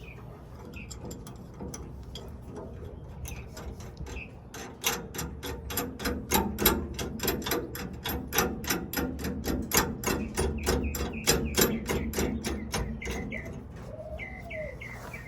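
Hand ratchet wrench clicking fast and evenly as the nuts are run down onto leaf-spring clamp bolts, starting a few seconds in and stopping near the end, with a few lighter ticks of handling before.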